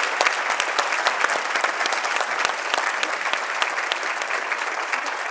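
Audience applauding: many people clapping at once in a dense, steady patter that eases off slightly near the end.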